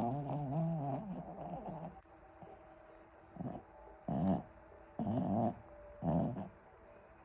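A pet snoring in its sleep: one long wavering snore over the first two seconds, then four shorter snores roughly a second apart.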